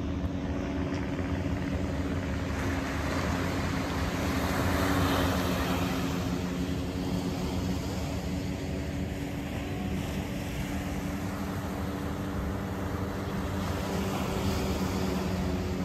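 Propeller-driven vintage warplanes droning overhead in a steady engine hum, swelling louder about five seconds in as one passes closer, with a smaller rise near the end.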